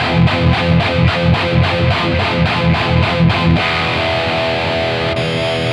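Distorted electric guitar through an old Marshall 1960A 4x12 cabinet loaded with Celestion G12T-75 speakers: tight palm-muted chugs at about four a second, then a chord left ringing from about three and a half seconds in. The low end is loose and lacks punch, which the player puts down to the worn old cab flexing on palm mutes.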